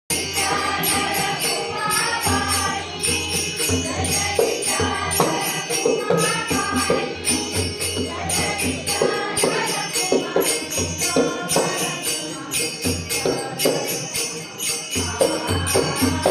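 A devotional Marathi bhajan: a singing voice carrying the melody over steady rhythmic jingling percussion and a low drum beat.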